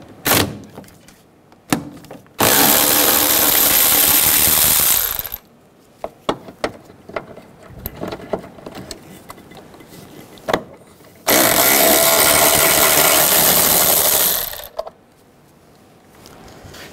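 Cordless electric ratchet with a 10 mm socket running twice, about three seconds each time, backing out two bolts, with sharp clicks and taps of the socket and bolts between the runs.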